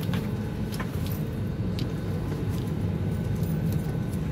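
Steady low hum inside an Airbus A320 cabin while passengers board, with scattered light clicks and knocks.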